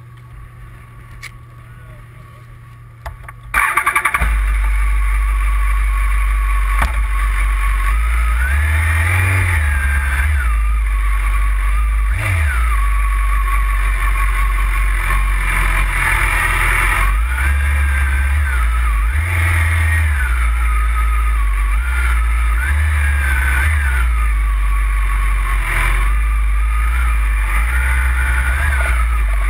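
BMW sport motorcycle engine heard from a camera mounted on the bike. It idles at first, then comes in loud about four seconds in as the bike rides off, with the revs climbing and falling back several times through the gears.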